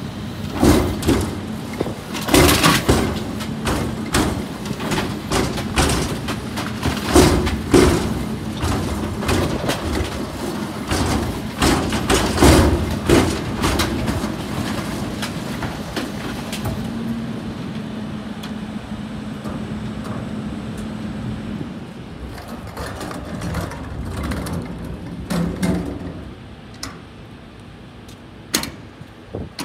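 A rear-loader garbage truck's bin lift tipping a large wheeled bin into the hopper, with repeated loud bangs and clatter as the bin is emptied, over the steady hum of the truck's engine and hydraulics. About two thirds of the way through the hum drops away, leaving a few separate knocks near the end.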